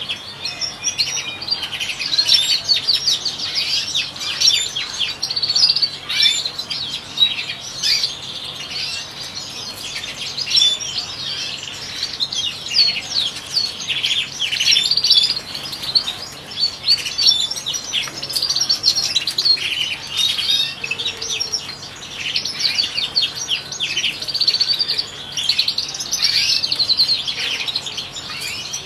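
European goldfinch song: continuous rapid twittering, full of quick trills and chirps.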